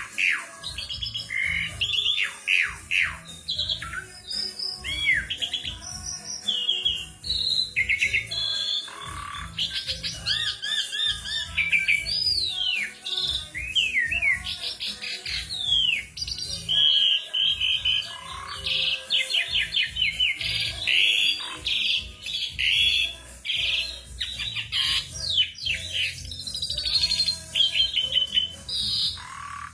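Asian pied starling singing a long, varied song of whistles, chirps and rising and falling notes, almost without pause.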